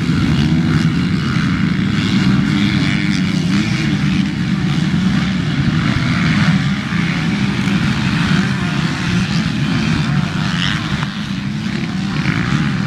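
A pack of motocross bikes racing on a dirt track, their engines buzzing and revving together in a steady, wavering drone.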